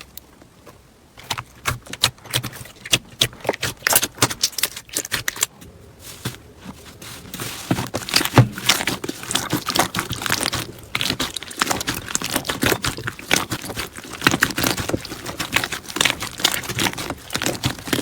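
Slime being squished and played with close up, making dense, irregular crackling and popping. There is a quieter pause in the first second and another around six seconds in.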